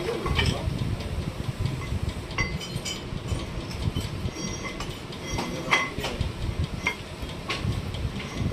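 Light metallic clinks and knocks, about half a dozen scattered through, over a steady low rumble.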